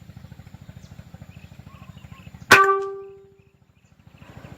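A single air rifle shot about two and a half seconds in: a sharp crack followed by a ringing tone that dies away over about a second.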